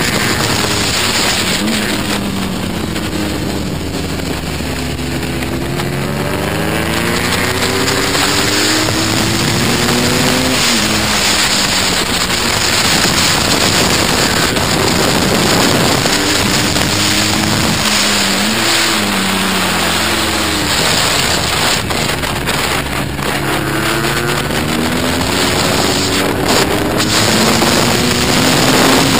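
BMW Boxercup race motorcycle's boxer-twin engine at racing speed, its note falling as the rider brakes into corners and rising again under acceleration, several times over. Heavy wind noise on the microphone runs under it.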